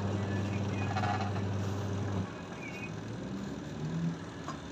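Electric motor of a twin-tub washing machine humming steadily, then cutting off a little over two seconds in, as in the pause of the wash cycle.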